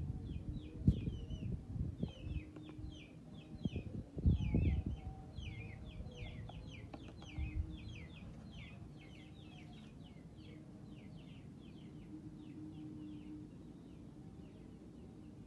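Birds chirping in a rapid run of short, high, falling cheeps, several a second, that thin out near the end. A few low thumps sound in the first five seconds, the loudest about four seconds in.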